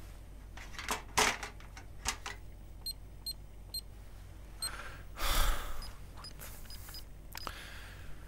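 Card payment terminal in use: a few clicks, then a series of short high beeps as its keys are pressed, a brief scraping rustle about five seconds in, and more key beeps after it.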